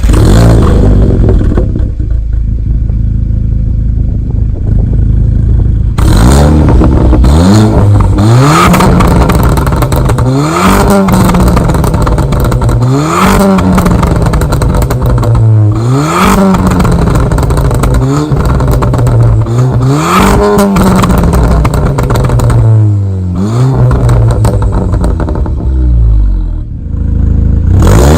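2016 Volkswagen Polo GTI's turbocharged four-cylinder engine through an Inoxcar racing exhaust, settling to idle after start-up and then blipped again and again, about one rev every two to three seconds, each rising and falling back. Pops and crackles from the exhaust as the revs fall.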